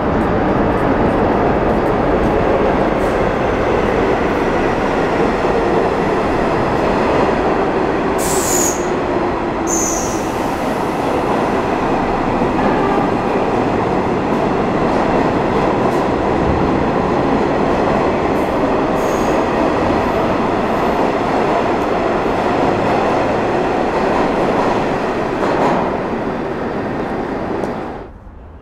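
Vintage St. Louis Car Co. R33 and R36 New York City subway train running through the station without stopping: a steady rumble of wheels on the rails, with two brief high wheel squeals about eight and ten seconds in, dropping away near the end.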